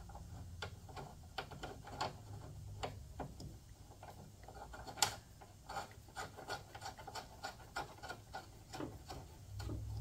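Faint scraping and small irregular clicks of hands handling an idler pulley and its mounting hardware by feel, under a lawn tractor.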